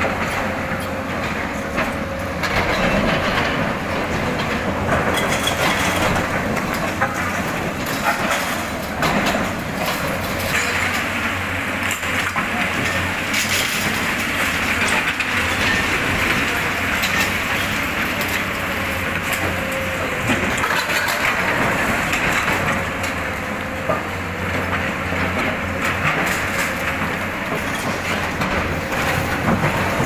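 Diesel engines of several tracked hydraulic excavators running steadily while they demolish concrete buildings, with repeated crunching and clattering of breaking masonry and falling rubble.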